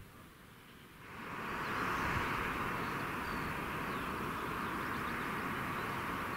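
The level crossing's electronic warning bell (GZT 30 acoustic signal) starts up about a second in and sounds steadily.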